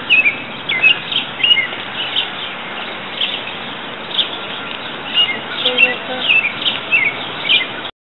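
Small birds chirping, many short high calls scattered throughout, over a steady background hiss; the sound cuts out abruptly right at the end.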